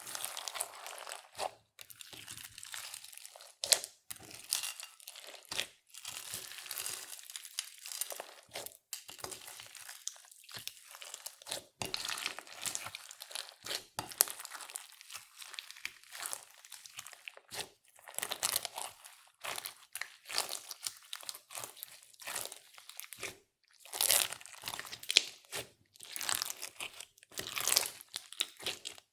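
Hands kneading and stretching clear slime mixed with makeup and glitter, making irregular squishing and crackling noises in short runs with brief pauses between them.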